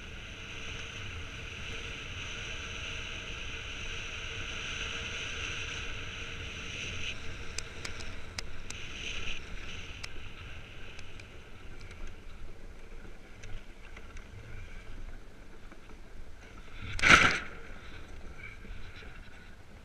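Iceboard's skate runners hissing over clear lake ice at speed, a steady high hiss that fades about a third of the way in. A few sharp clicks follow, then a brief loud burst of noise near the end.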